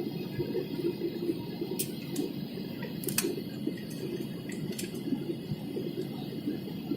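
Steady low rumble of an airliner cabin in flight, the drone of the engines and airflow, with a few faint clicks.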